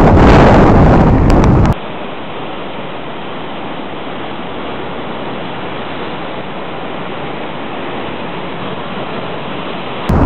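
Wind buffeting the microphone with a loud rumble for the first couple of seconds, then a steady, even rush of heavy surf breaking and washing among shoreline rocks. Near the end the wind rumble abruptly returns.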